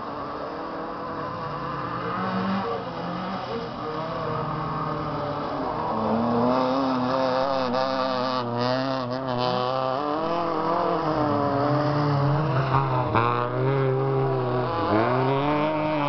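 Rally hatchback's engine revving hard under racing, its pitch climbing and falling again and again with throttle and gear changes, growing louder over the first few seconds and staying loud.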